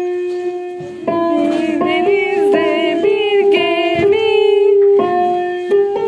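Electronic keyboard playing a slow melody of single held notes that step up and down.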